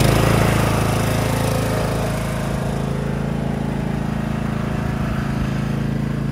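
Small single-cylinder-style engine of a ride-on lawn tractor running steadily at idle, a little louder in the first second and then even.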